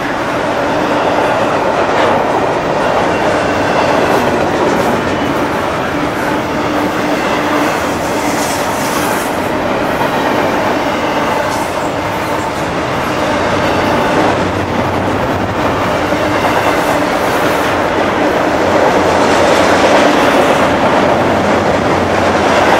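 Double-stack intermodal container train's well cars rolling past, a steady rumble of steel wheels on the rails.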